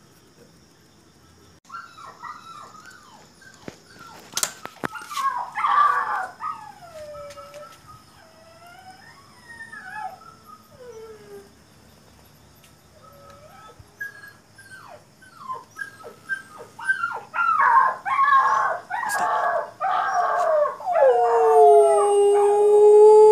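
Recorded puppy cries and whimpers played through a phone speaker: many short whines that rise and fall in pitch. Near the end a dog answers them with one long, steady howl, the loudest sound.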